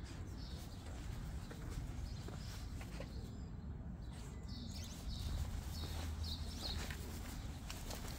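Outdoor ambience on a walk: a steady low rumble with light footsteps and scattered faint, short bird chirps.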